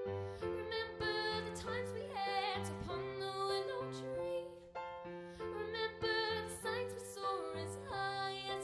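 A woman singing live while playing a grand piano: piano chords and low bass notes changing about once a second beneath a sung melody, with a wavering vibrato on her held notes.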